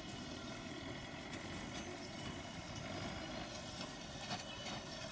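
Farm machinery engines running steadily at a distance, with a few light clicks and rattles.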